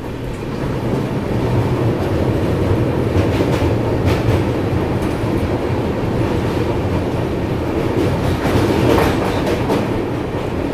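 Navjeevan Express passenger train crossing a steel truss bridge: steady rumble of the wheels on the rails, with a few sharp clacks as the wheels pass over rail joints.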